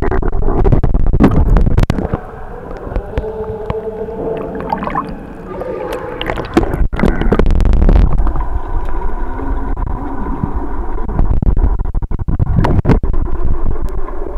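Muffled pool water heard through a waterproof camera held under the surface: a heavy low rumble with gurgles and sharp knocks, and faint wavering tones in the middle. The sound is quieter between about two and six seconds in, then rises again.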